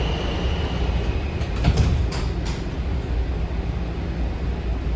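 DC Metro train running with a steady low rumble. A faint high whine fades out about a second in, and a few sharp clicks come around two seconds in.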